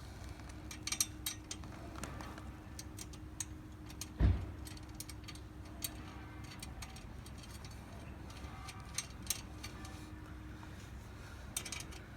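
Sparse light clicks and ticks over a faint low hum, with one dull thump about four seconds in; no engine is running.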